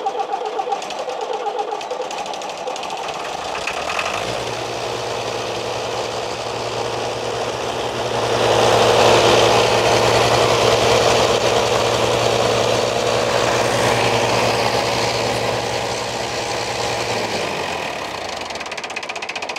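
Hanomag tractor's diesel engine running, with a knocking diesel clatter. A steadier, louder running note comes in about four seconds in and stops near the end. It is running on all its cylinders with good compression, and its running is described as quite special and fantastic.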